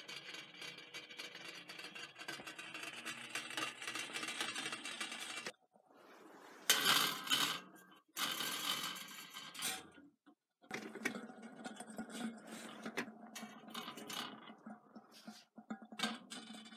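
Stainless steel kettle boiling on a gas-ring burner, a steady noise of bubbling. Between about 6.5 and 10 seconds a wire grill net is handled under the kettle with loud metallic clattering. Then the kettle boils steadily again.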